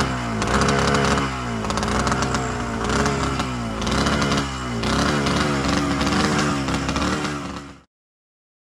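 Ultralight trike's engine running, its pitch rising and falling about once a second. The sound cuts off suddenly near the end.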